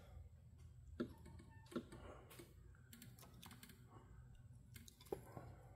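Near silence with a few faint, irregular clicks and scrapes: a folding knife blade working behind the glued electromagnetic 4x4 coil on the front hub to break the adhesive.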